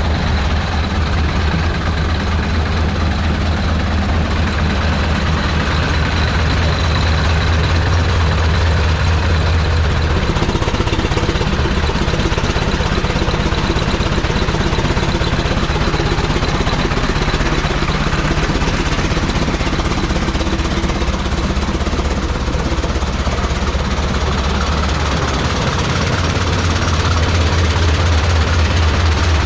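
1910 Aultman Taylor 30-60 tractor's big two-cylinder engine running belted to a sawmill, with a rapid, even firing beat. Its low drone weakens about ten seconds in and returns near the end.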